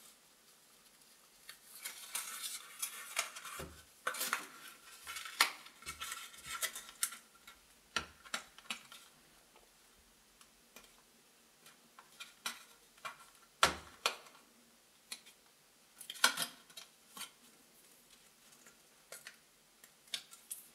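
Christmas wrapping paper rustling and crinkling in irregular bursts as it is folded around a cardboard toilet-roll tube, with a few sharper knocks.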